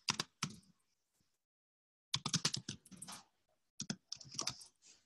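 Typing on a computer keyboard, a quick run of keystrokes in three short bursts: at the start, about two seconds in, and about four seconds in.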